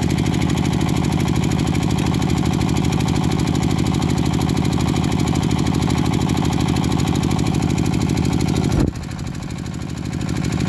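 A small engine running steadily with an even pulse. Near the end it suddenly drops in pitch and loudness, then builds back up.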